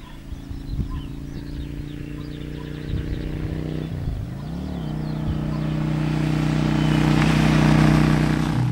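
Yamaha V-Star 650 cruiser's air-cooled V-twin engine running as the motorcycle approaches, growing steadily louder. The engine note dips briefly and climbs again about four seconds in, and the bike is loudest as it comes up close near the end.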